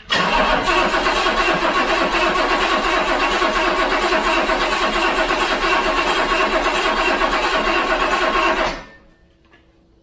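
1984 BMW 733i's 3.2-litre inline-six cranking steadily on the starter for about nine seconds without firing, then cutting off. It is a crank-no-start, with the fuel pump powered continuously from a separate battery.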